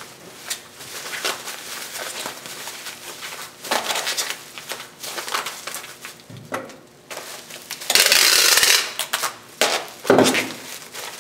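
Bubble wrap crinkling and rustling as it is pressed and wrapped around a glass bowl. Near the end, packing tape is pulled off a tape gun for about a second, followed by a thud.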